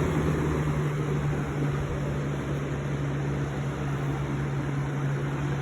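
1997–98 Lasko 3733 20-inch box fan running on medium speed: a steady motor hum under the even rush of air from the blades.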